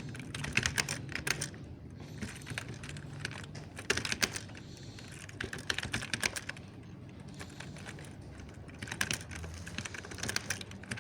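Mechanical keyboard being typed on, its keys clicking softly in irregular bursts with brief pauses between them.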